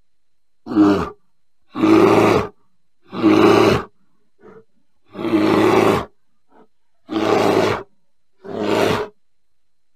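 A bear growling in a series of six short, deep calls, each under a second long and about a second apart, with two faint short grunts between them.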